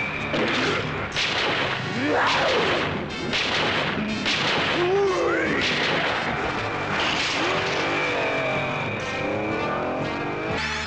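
Dubbed action-show sound effects: a race car's engine running under a quick series of blasts and whooshing sweeps, some rising and some falling in pitch.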